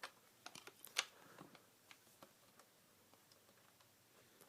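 Faint, short clicks and taps of a Cyma MP5 airsoft replica being handled as a receiver pin is pushed out, scattered over the first couple of seconds, the loudest about a second in.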